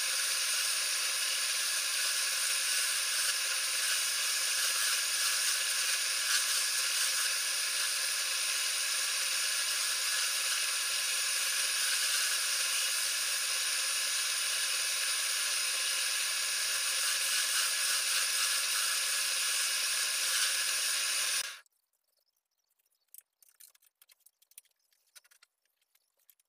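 Wood lathe running steadily with a spindle turning on it: a high whine over a hiss that stops abruptly about 21 seconds in. A few faint clicks and taps follow near the end.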